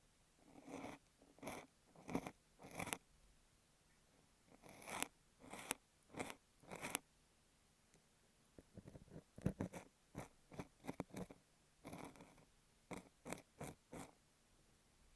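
Ear pick scraping and crunching through kinetic sand right against an earphone microphone, in short separate strokes with brief quiet gaps. The strokes come close together in a quick cluster about halfway through.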